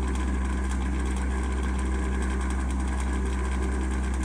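Steady low electrical hum of a DC rapid charging unit's cooling fans and power electronics, even and unchanging, with fainter higher tones above it.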